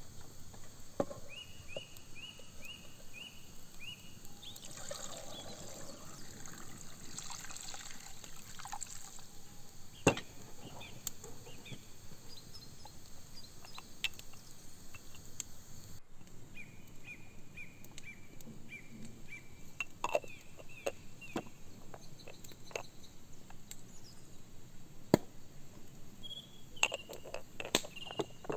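Water pouring and trickling, with a bird repeating a short high chirp in quick runs and scattered sharp clicks and knocks.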